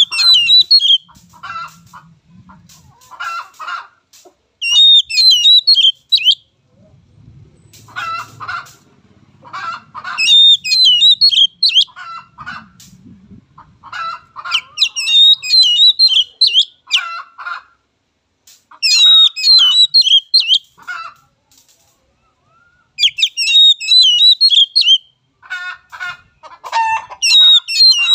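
Oriental magpie-robin (kacer) singing: loud, rapid, varied whistled phrases repeated every couple of seconds with short pauses between. This is the kind of full song played as a lure (pancingan) to prompt other magpie-robins to sing.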